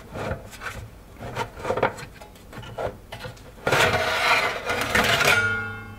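Bench power supply's sheet-metal cover being worked loose and slid off its chassis: scattered short scrapes and knocks, then a louder scrape of metal on metal lasting about a second and a half, just over halfway through.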